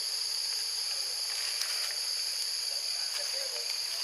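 Steady, high-pitched insect chorus: several shrill layers of buzzing that hold level without a break.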